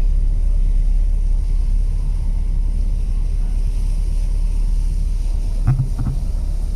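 Steady low rumble of a car, heard from inside the cabin as it drives through shallow floodwater. Near the end there are a couple of brief knocks.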